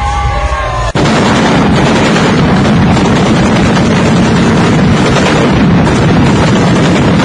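Stage pyrotechnics going off over a packed arena crowd: a loud, dense, even rush of noise that starts abruptly about a second in and cuts off near the end. Entrance music plays briefly before it.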